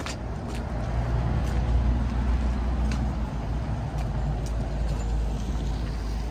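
A motor vehicle's engine running close by, a low rumble that swells about a second in and then holds steady.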